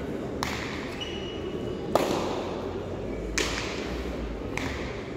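A hard pelota ball cracking against the frontón wall and the players' hands during a rally: four sharp hits about one to one and a half seconds apart, each ringing out in the large hall. The hit about two seconds in is the loudest.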